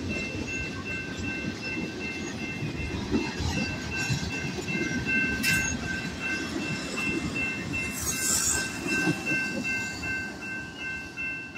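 Freight cars of a work train rolling past over the rails with a low rumble and wheel clatter. A grade-crossing warning bell rings steadily over it, and there is a short high hiss about eight seconds in.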